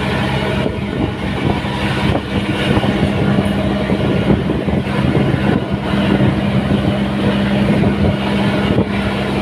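An engine running steadily at a constant speed, a continuous low hum with a rough, rattling noise over it.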